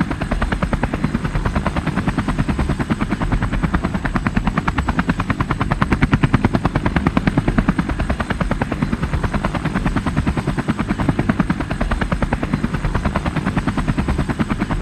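Plastic toy helicopter run by hand along the floor, its gearing and spinning rotor making a rapid, even clatter.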